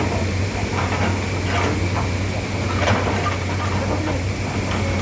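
An engine running steadily with a low hum and a constant high whine, with scattered knocks and clatter over it.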